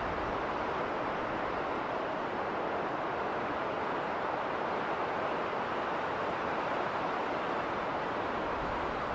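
Winter storm wind blowing in a steady rush, with some low rumble from gusts on the microphone.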